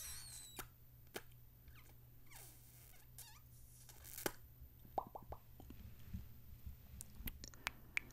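Faint, scattered wet lip smacks and mouth pops, with a short squeaky smooch right at the start and a small cluster of pops about five seconds in.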